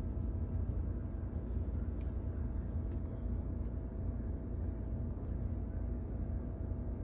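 Steady low rumble with a faint, thin steady hum above it.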